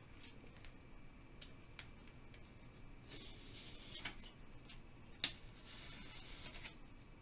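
X-Acto craft knife cutting black foam core board along a metal ruler: faint scratchy strokes of the blade, with two longer cuts in the second half and a sharp click between them.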